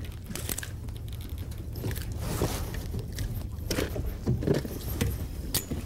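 Footsteps, knocks and scraping on a bass boat's deck as someone moves about. Several knocks about two seconds in, and more from about three and a half seconds, the loudest near the end, over a steady low hum.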